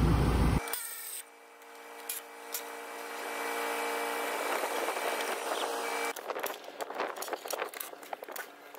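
A loud low rumble cuts off about half a second in, then a power tool motor runs steadily, growing louder, during work under an electric car's battery pack. About six seconds in it gives way to a rapid clatter of clicks and knocks.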